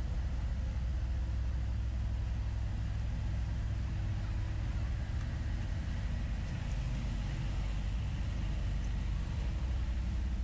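Steady low rumble of nearby cars and buses running in traffic.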